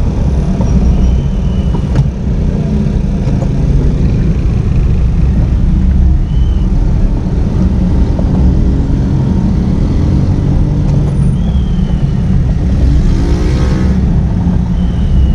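Steady low rumble of a car engine and road noise heard from inside the cabin while creeping through stop-and-go traffic, with the sound of surrounding traffic. Near the end there is a brief wavering pitched sound.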